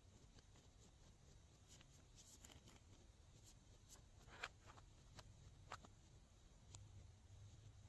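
Near silence: low room tone with a scattering of faint, soft clicks, a few slightly clearer ones around the middle.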